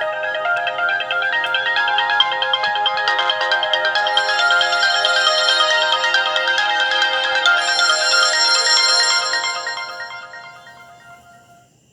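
BlackBerry Bold 9700 ringtone playing: a busy electronic melody of many quick short notes that fades out over the last two seconds.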